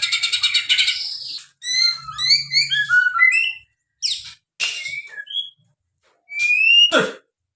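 White-rumped shama (murai batu) singing its cililin-style material: a fast trill, then runs of short falling chirps and scattered whistled notes with brief pauses. It ends with a rising whistle that drops steeply about seven seconds in.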